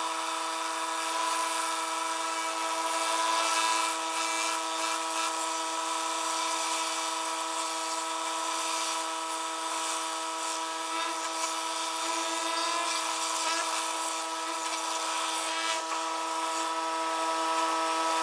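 Pressure washer running with a surface cleaner on concrete: a steady machine whine with the hiss of water spraying under the cleaner's hood.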